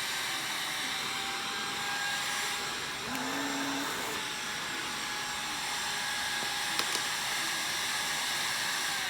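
LG CordZero A9 cordless stick vacuum cleaner running at a steady speed, a dense airy hiss with a faint high whine from the motor.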